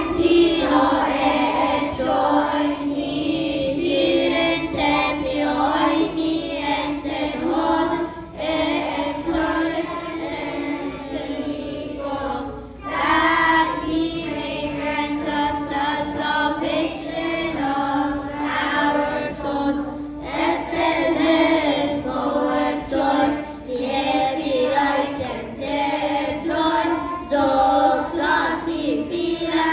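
Children's choir singing a hymn, with short breaks between phrases about 8 and 13 seconds in.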